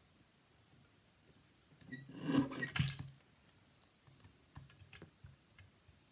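A Stampin' Up! paper trimmer's blade slider being run down its track, cutting a strip of cardstock: a scraping slide of about a second that ends in a sharp click. Afterwards, faint light taps as the cardstock is handled and set against the trimmer again.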